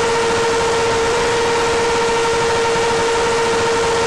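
Loud, steady static hiss with a constant buzzing tone and its overtones, the noise of an analog FPV video link breaking up.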